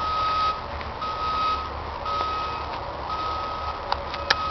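Vehicle backup alarm beeping, a single-pitched tone repeating about once a second, over a low steady rumble. Two sharp clicks come near the end.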